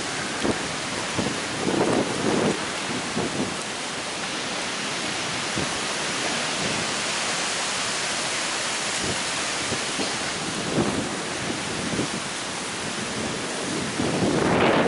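Heavy rain pouring steadily in a severe thunderstorm, with gusts of wind buffeting the microphone, strongest near the end.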